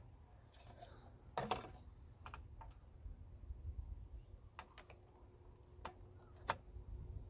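Scattered small clicks and taps as push-on wire connectors are handled and fitted onto the terminals of sealed lead-acid batteries in a plastic battery case. The loudest click comes about a second and a half in, with another sharp one near the end.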